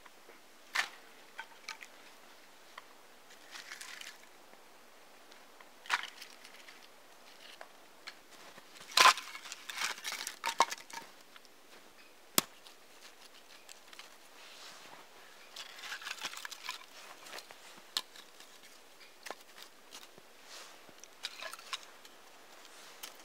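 Split firewood being handled and laid down on snow: scattered sharp wooden knocks as pieces strike one another, the loudest cluster about nine seconds in and a single sharp crack around twelve seconds, with stretches of soft crunching snow between them.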